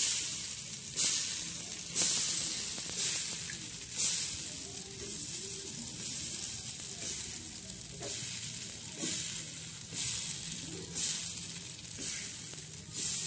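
Thin rice-flour batter sizzling on a hot, oiled iron tawa as it is drizzled on by hand. Each new trickle sets off a fresh burst of sizzling, about once a second at first and again several times near the end, fading in between.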